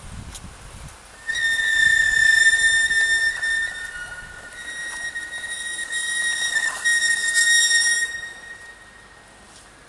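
A high, steady whistling tone starts about a second in, holds for nearly seven seconds and then fades out.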